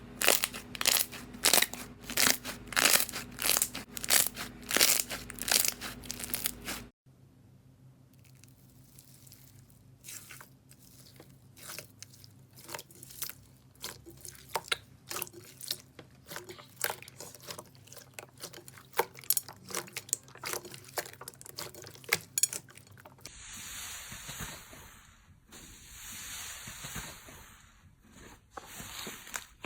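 Crunchy slime being squeezed and pressed by hand, giving a fast run of loud crackling crunches. About seven seconds in it cuts suddenly to quieter, sparser crunches. Near the end comes a softer, hissing squish.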